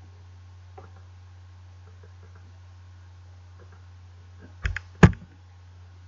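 Two sharp clicks close to the microphone, about a third of a second apart near the end, from a computer mouse clicking the slide on to the next page. A steady low electrical hum runs underneath.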